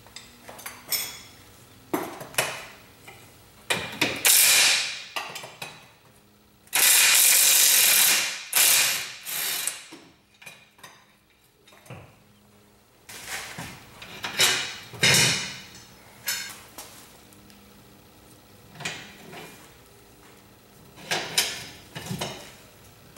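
A ratchet wrench runs out the bolts of an E46 BMW's rear trailing-arm mounting bracket in several bursts of ratcheting. The longest burst is a steady run of about two seconds, some seven seconds in.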